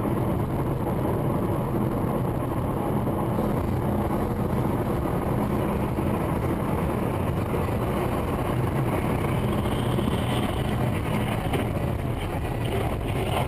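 Steady engine and road noise of a moving car, with no sharp knock or impact.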